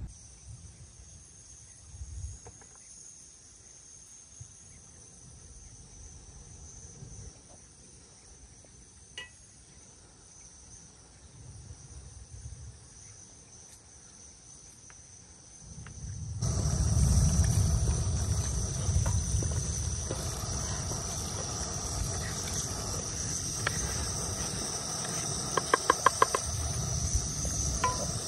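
Insects chirring in a steady, high-pitched drone. About halfway through it turns louder, joined by a low rumble, and near the end there is a quick run of sharp clicks.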